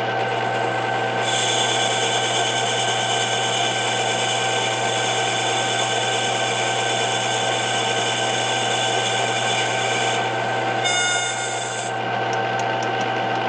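Chinese 3-in-1 mill-lathe-drill running with a steady motor hum while its boring bar cuts inside a spinning Delrin bushing blank. A higher, hissing cutting noise comes in about a second in and lasts to about ten seconds, then returns briefly near the end.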